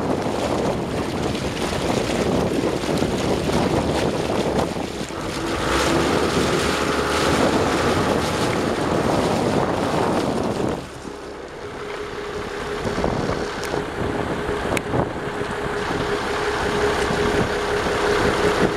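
Yamaha FR-25 boat's engine running, its propeller wash churning and splashing the water at the stern in a loud rush. About eleven seconds in the churning noise drops away, leaving a steady engine hum.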